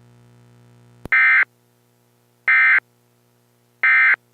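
Three short Emergency Alert System end-of-message data tones, each about a third of a second long and about 1.4 s apart, marking the close of the alert. Before them a faint steady hum runs until a click about a second in.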